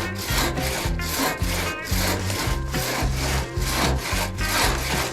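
Hand saw cutting through pine wood in quick, even back-and-forth strokes, about two to three a second.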